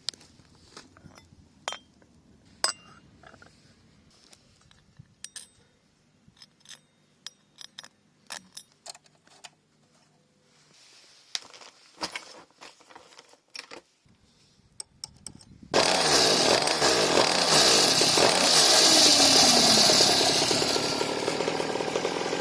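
Scattered metallic clicks and clinks from tools and the chain being handled. About two-thirds of the way in, a small pocket-bike engine starts up suddenly and runs loud to the end, its pitch rising and falling with the throttle.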